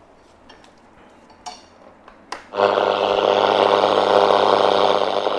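A few light clicks and knocks as a Toshiba RT2130 radio-cassette recorder is handled, then about two and a half seconds in its radio comes on through the speaker with a loud, steady hiss and hum of static.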